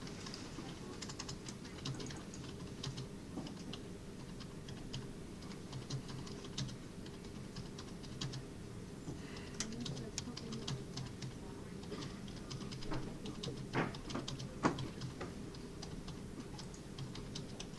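Irregular light clicks and taps, scattered unevenly, with two sharper ones about three-quarters of the way through, over a steady low hum.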